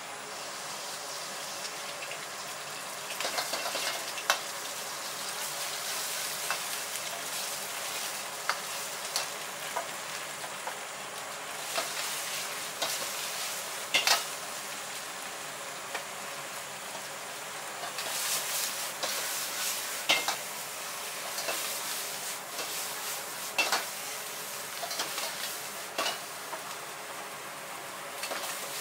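Eggs, then diced chicken, sizzling in a hot wok over a gas burner. A metal wok ladle scrapes and tosses the food, striking the wok in several sharp clanks.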